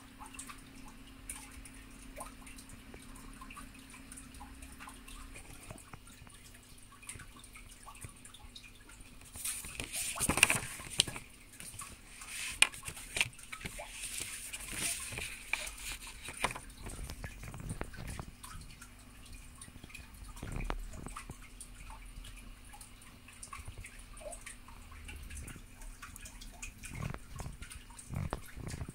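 Handling noise from a paper instruction booklet: small irregular ticks and soft rustling, with louder page rustling about ten seconds in and again between about thirteen and sixteen seconds. A faint steady hum sits under the first few seconds.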